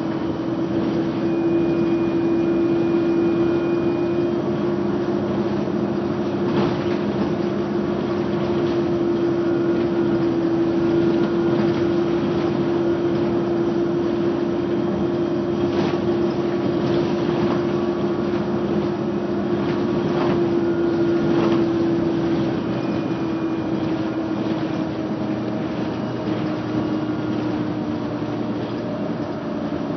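Mercedes-Benz Citaro city bus heard from inside the passenger cabin while under way: the engine and drivetrain run with a steady droning whine over road rumble. The whine holds one pitch for about twenty seconds, then drops slightly lower and softer.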